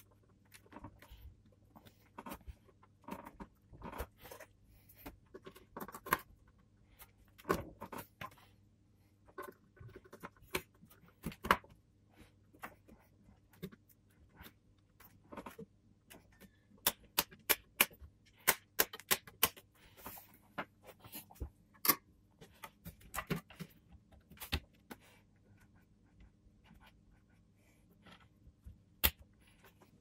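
Irregular clicks, taps and light knocks of hands handling components and cables inside an open desktop computer case, with a quicker run of sharp clicks in the middle and a faint steady hum underneath.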